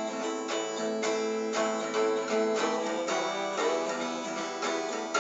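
Acoustic guitar strummed in a steady rhythm, about two strokes a second, playing the chords between sung lines of a song.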